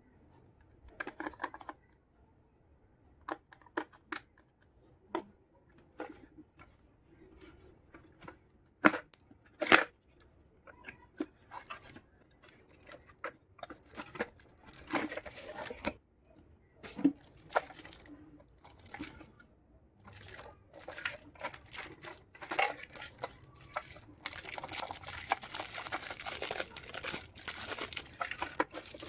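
Toy-kitchen unboxing sounds: scattered clicks and taps of small plastic pieces being handled, then a denser crinkling and tearing of plastic packaging over the last few seconds.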